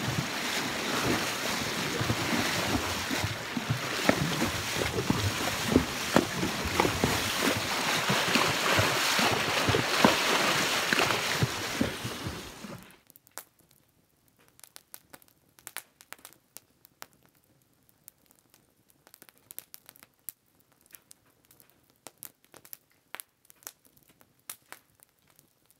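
A horse wading across a shallow, rocky river: steady splashing and sloshing of water. About halfway through it cuts off abruptly, and faint, scattered crackles of a small campfire follow.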